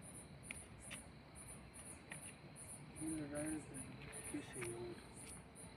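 Crickets chirping in short high-pitched pulses about twice a second, with faint voices in the background about halfway through.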